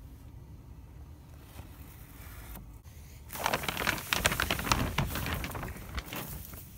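Faint low background, then a loud crinkly rustling and crackling with many small clicks, starting a little before halfway and lasting about three seconds.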